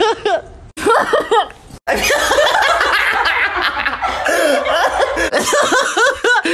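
A young man laughing hard in quick, repeated, loud bursts, from several short clips spliced end to end. The sound breaks off abruptly at each splice, about a second in and again just before two seconds.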